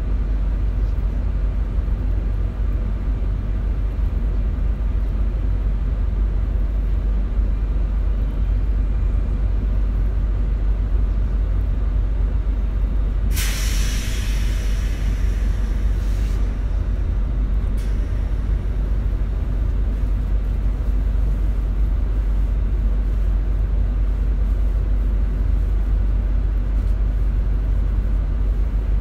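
Inside an RER commuter train carriage standing at a station: a steady low rumble from the train, with a hiss of compressed air about halfway through that lasts about two and a half seconds.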